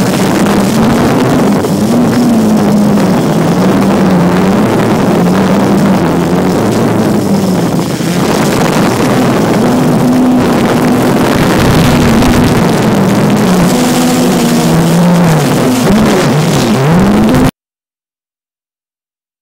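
Blade 350 QX2 quadcopter's electric motors and propellers buzzing loudly, heard from a camera mounted on the drone in flight. The pitch rises and falls constantly as the motors speed up and slow down. The sound cuts off suddenly near the end.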